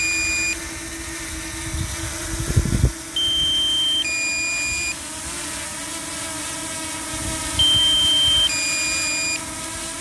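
DJI Mini 2 controller's low-battery warning: a two-tone beep, a higher tone then a lower one, repeating about every four and a half seconds. Under it runs the steady hum of the drone's propellers as it comes in to land.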